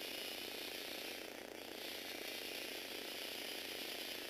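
Motorised Lego Technic vehicle driving along, its plastic gears and drivetrain whirring steadily with a rapid ratchet-like chatter; the whir eases briefly about a second and a half in.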